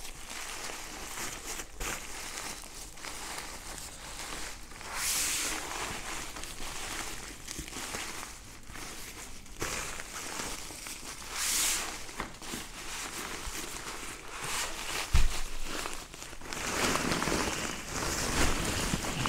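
Therm-A-Rest NeoAir XTherm Max inflatable sleeping pad being rolled up and pressed down by hand and knee, its thin fabric crinkling and rustling in uneven bursts as the air is squeezed out. The rustling is loudest near the end, with a single soft knock shortly before that.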